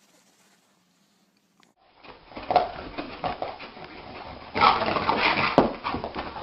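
Near silence for about two seconds, then a dog's sounds, with irregular louder stretches, the loudest a little after the middle.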